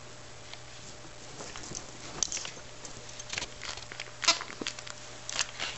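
Irregular small clicks and rustles of a Yorkshire terrier scrambling on a couch cushion and mouthing a plush hedgehog toy, with no barking or growling.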